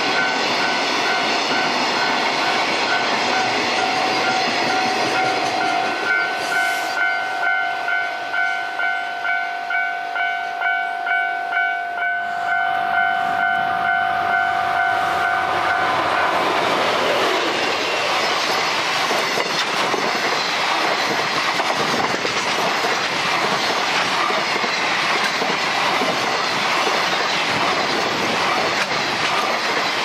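Railway level-crossing warning bell ringing steadily while a train approaches. About halfway in the bell's tone is lost under the rush of a train passing close by, with wheel-on-rail noise and clickety-clack.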